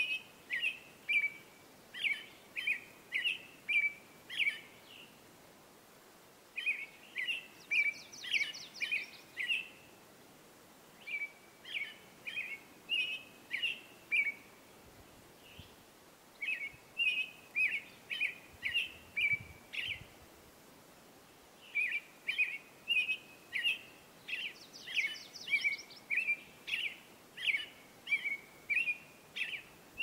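American robin singing: runs of short, clear whistled notes in caroling phrases a few seconds long, broken by brief pauses, with a few thin, high squeaky notes mixed in.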